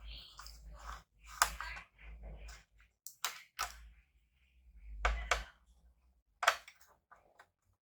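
A handful of sharp, irregular clicks and taps of small hard plastic and metal laptop parts being handled and set down during disassembly.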